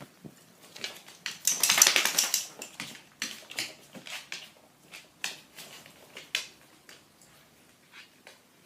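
A mother dog mouthing and play-biting her puppy: scuffling and rustling with sharp mouth and teeth clicks. The loudest burst of scuffling comes about a second and a half in, followed by scattered clicks that die down after about six seconds.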